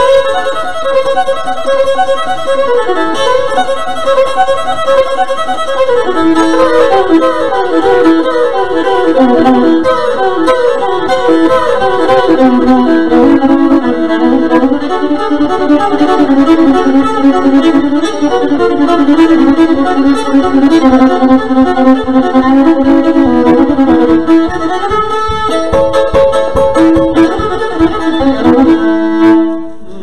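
Solo fiddle playing a fast tune, quick bowed notes over a sustained drone string (double stops), ending with a final note just before the close.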